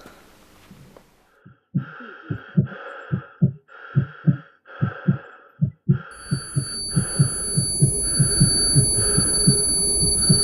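Heartbeat sound effect: a regular double thump, each beat with a muffled pulsing hiss. About six seconds in, a high steady ringing tone sets in and the heartbeat grows louder.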